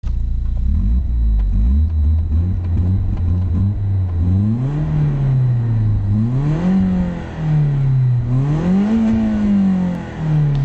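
BMW E36 318is four-cylinder engine heard through its stock exhaust, idling steadily and then revved three times, each rev rising and falling in pitch, the last held longest.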